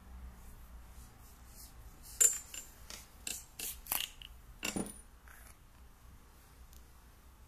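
Sofirn SD05 diving flashlight being taken apart by hand: the tail cap is unscrewed and the battery pulled out of the metal tube, giving a series of sharp metallic clicks and clinks. The loudest is about two seconds in, with a quick cluster a second later and a last pair near the five-second mark.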